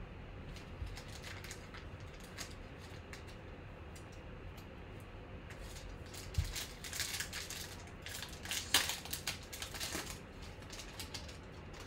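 Foil trading-card pack wrapper being handled and torn open. Light scattered clicks at first, then a knock about six seconds in followed by a few seconds of crinkling and tearing.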